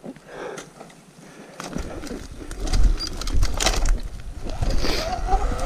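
Sur-Ron electric dirt bike riding over rough off-trail ground: scattered clicks and knocks, then a low rumble and frequent sharp knocks from about two seconds in. Near the end the electric motor's steady whine comes in.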